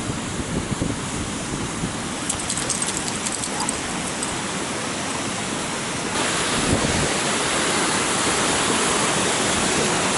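Steady rushing hiss of a creek and small waterfall tumbling over rocks, a little louder and brighter from about six seconds in. A few faint, high clinks come between two and four seconds in.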